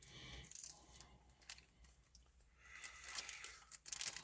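Packaging being handled: soft rustling and crinkling with a few light clicks, growing louder near the end.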